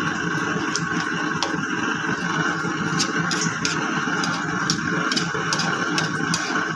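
Pot of string beans and moringa leaves simmering in coconut milk: a steady bubbling hiss with scattered small pops.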